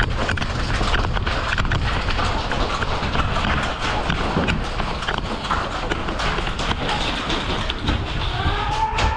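Busy clatter of a moving airsoft player's gear and footsteps, many irregular sharp clicks over a steady rumble and rustle of handling noise on the mic. Near the end a drawn-out pitched tone with several overtones begins.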